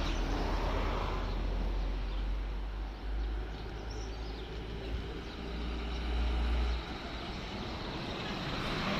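A road vehicle's engine running on the road close by, steady and low-pitched, louder in the middle and dropping off about seven seconds in.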